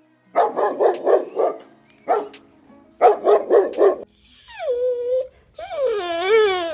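A dog barking in quick runs of short barks, then giving a drawn-out whine that falls in pitch and holds, followed by another that wavers up and down.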